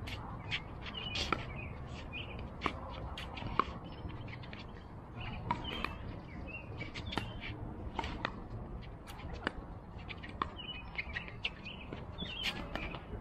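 Pickleball paddles striking the plastic ball during a doubles rally: a run of sharp pops at uneven intervals, roughly one a second, with a few quick exchanges.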